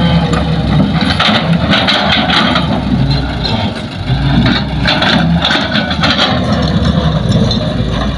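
Heavy diesel engine of earthmoving machinery, an excavator working beside a dump truck, running steadily under load. Short bursts of noise come on top of it several times.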